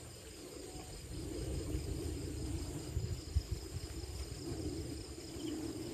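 Night crickets chirping in a steady, evenly pulsing trill, with a second steady high insect tone above it, over a low rumble.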